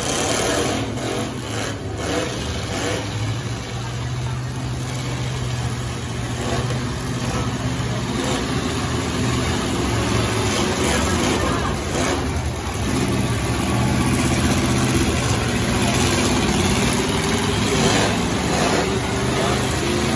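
Engines of several demolition derby pickup trucks running and revving.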